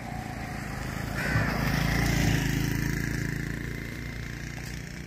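Motorcycle engine passing by, growing louder to a peak about two seconds in, then fading away.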